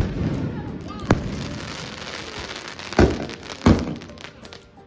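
Elephant brand 'Art in the Sky' 25-shot fireworks cake firing aerial shells: a loud bang right at the start, then more bangs about a second in, at three seconds and shortly after, with a dense crackling hiss of burning stars between them.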